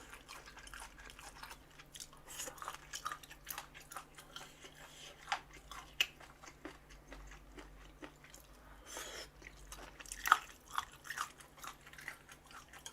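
Close-miked chewing and crunching of a mouthful of spicy chicken feet with crunchy pork cartilage (odolbbyeo): many short wet clicks and crunches, the sharpest crunch about ten seconds in.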